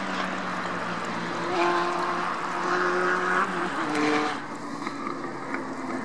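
Engine hum of a passing motor vehicle, a steady pitched drone with a rushing noise. The pitch drops and the noise falls away about four and a half seconds in.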